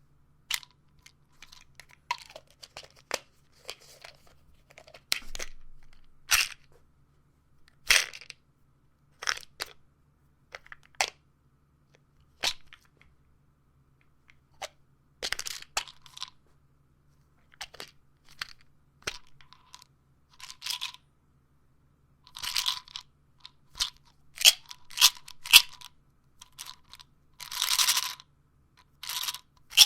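Pills and a pill bottle being handled: a string of separate sharp clicks and short rattles, with a few longer rattles in the middle and near the end.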